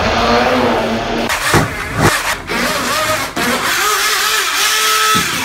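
Small electric RC speedboat motor whining as it drives hard through bathtub water, its pitch rising and falling with throttle over the churning and splashing of the water. The motor drops out briefly a few times, at about a second and a half, two seconds and three seconds in.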